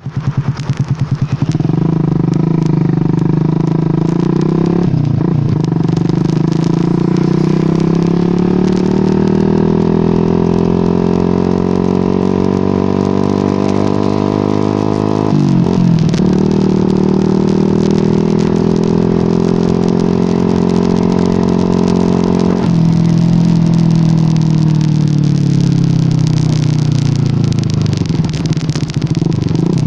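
Yamaha R15 V2's single-cylinder four-stroke engine pulling the motorcycle along through the gears. The engine note rises steadily with brief breaks at shifts about five, fifteen and twenty-three seconds in, then falls as the bike slows near the end.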